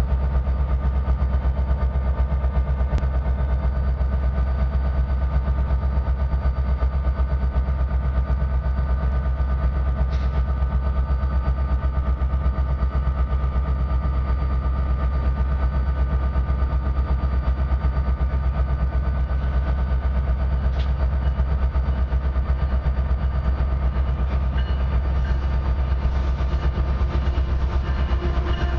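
Steady, low diesel rumble with several steady whining tones, typical of an idling diesel locomotive. Near the end, new, deeper steady tones join as a freight train's diesel locomotives come up to the station.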